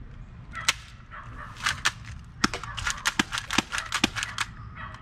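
Spring-powered Walther PPQ airsoft pistol clicking and snapping as it is handled, cocked and fired. There are a few sharp clicks in the first two seconds, then a quick run of them.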